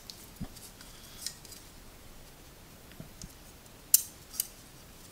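Scattered light clicks and taps of plastic quadcopter arms and a carbon fiber frame plate being handled and fitted together, with a couple of soft knocks on the table and the sharpest click about four seconds in.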